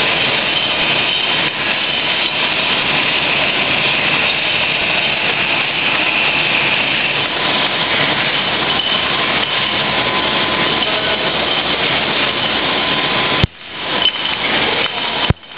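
Steady machine noise from a running automatic screen printing line and its fans, even and unbroken, with a faint steady hum-like tone in it. Near the end two sharp clicks each cut the noise briefly before it comes back.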